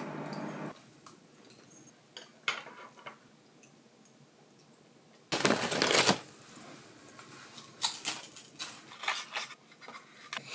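Quiet clicks of chopsticks and tableware on a wooden dining table, broken about five seconds in by a loud clunk and rustle lasting about a second, as a glass bottle is set down on the table right by the microphone. More small clicks of chopsticks on dishes follow near the end.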